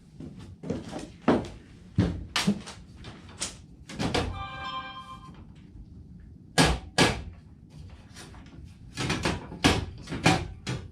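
Rubber mallet tapping a drawer handle's tabs into their slots: irregular sharp knocks, some in quick clusters, with a short ringing tone about four seconds in.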